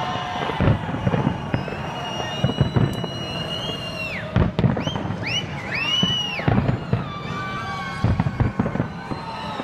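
Fireworks display going off: repeated sharp bangs of bursting shells, with high whistles that rise and fall in the middle.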